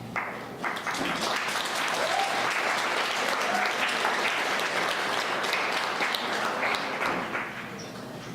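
Audience applauding, starting at once and dying down near the end.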